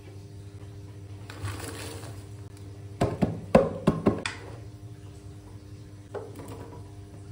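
Frozen mixed vegetables tipped from a plastic container into a wok of broth: a quick burst of clattering clicks and knocks about three seconds in, then a single knock a couple of seconds later, over a steady low hum.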